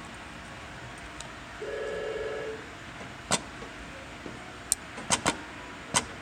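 LK1920 computer-controlled pattern sewing machine running a short stitch cycle, a buzz lasting about a second, followed by several sharp mechanical clacks from its work clamp and pedals being worked.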